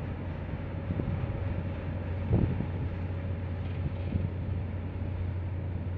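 Low steady drone of a large container ship's engine as it sails out of harbour, with a faint steady higher whine over it. Wind buffets the microphone, and there is a brief knock about two seconds in.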